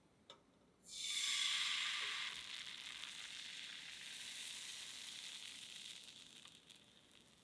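A small click, then about a second in a sudden loud sizzle as chocolate crepe batter meets a hot pan. It settles into a steady sizzle as the crepe cooks and fades near the end.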